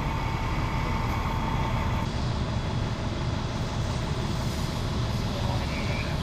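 Fire engine's diesel engine idling steadily, with a thin steady whine over it that stops about two seconds in.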